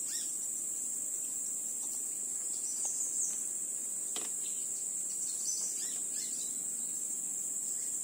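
Insects buzzing in a steady, high-pitched drone, with a few short high chirps over it about three and six seconds in.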